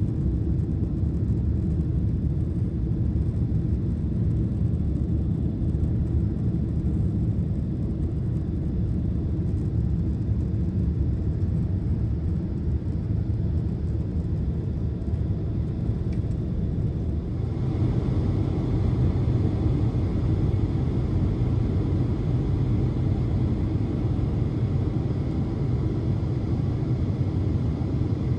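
Steady engine and airflow rumble of a jet airliner climbing after takeoff, heard inside the cabin. About two-thirds of the way through, a brighter rushing hiss joins the rumble.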